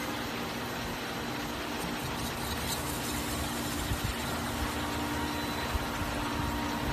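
Cookware beading machine running steadily with a stainless steel pot body clamped in it: a constant motor hum over even machine noise, with a few faint knocks.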